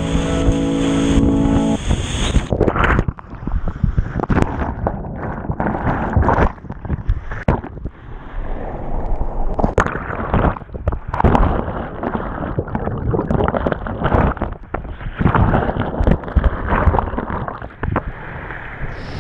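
Background music ends about two seconds in, giving way to loud whitewater rushing and splashing right against a kayak-mounted action camera, with uneven surges, sharp splashes and gurgling as the boat runs steep rapids and the camera is at times swamped by foam.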